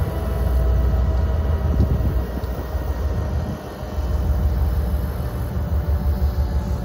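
Train passing with a loud, steady low rumble and faint steady whines above it, dipping briefly about halfway.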